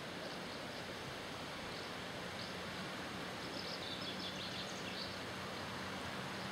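Steady rushing of the Sioule river's flowing water, with a few faint short bird chirps about halfway through and a faint steady low hum from about two seconds in.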